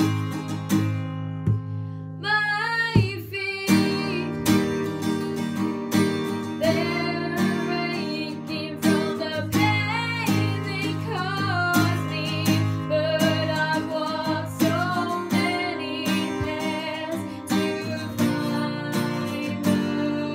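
Acoustic guitar strummed in a steady rhythm, with a voice singing a melody over it from about two seconds in.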